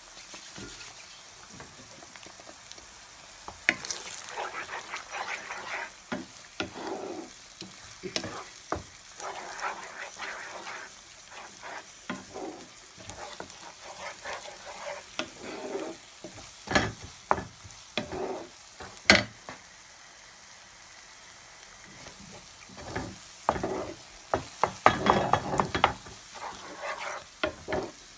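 Eggs frying with vegetables in a pan, sizzling faintly, while a wooden spatula scrapes and knocks against the pan as they are broken up and scrambled. The knocks come in irregular runs and are sharpest and most frequent near the end.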